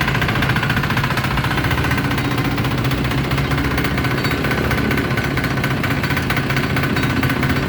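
Firman FTL 900 HD farm machine's 5.2 hp diesel engine running steadily with a rapid, even beat.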